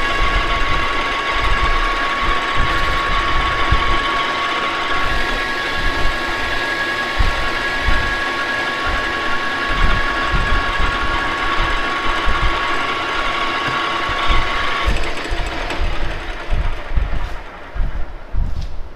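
Metal lathe turning a stressproof steel bar, the tool taking a cut, with a steady high whine over a low rumble. The whine stops about fifteen seconds in, leaving the lathe running.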